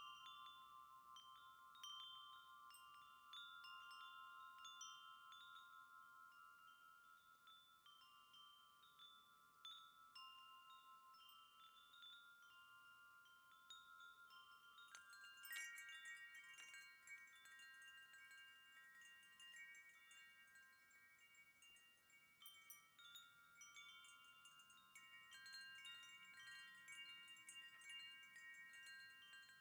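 A wind chime ringing softly as the wind knocks it, its notes overlapping and ringing on between strikes. About halfway through, a flurry of strikes brings in more notes.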